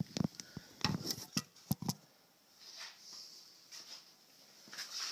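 Handling noise of a phone camera being moved and set down: a quick run of clicks and knocks in the first two seconds, then faint room hiss.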